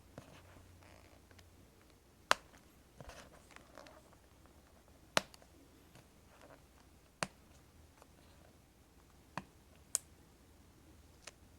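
Sparse sharp clicks and taps, about six spread over the stretch, with a little light scraping, from small tools prying at the keyboard backlight parts inside an opened MacBook Pro.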